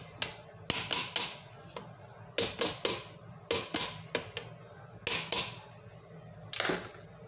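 Green papaya being shredded on a hand-held metal grater: about a dozen short, sharp scraping strokes in quick clusters of two to four, with short pauses between.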